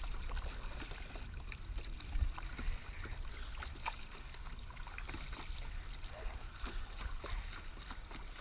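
Paddle strokes in water: small irregular splashes and drips off the blade over a steady low rumble.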